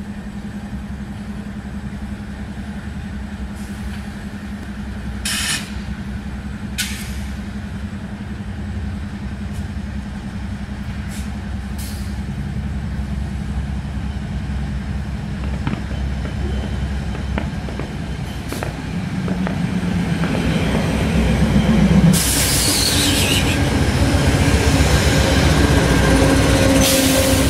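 Amtrak passenger train led by a GE Genesis diesel locomotive approaching and rolling past along the platform. A steady low hum and rumble grows louder, then about three-quarters of the way in the locomotive and cars go by loudly with a high metallic squeal.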